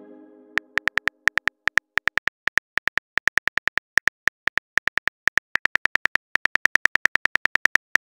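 Simulated phone keyboard key-tap clicks: short, bright ticks repeating at about eight a second as a text message is typed letter by letter. At the start, the last of a message chime fades out.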